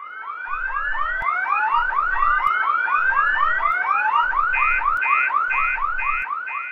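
Electronic alarm siren sound effect: rapid rising whoops, about four a second, over a slower rising wail. About four and a half seconds in, a beeping tone joins at about two beeps a second.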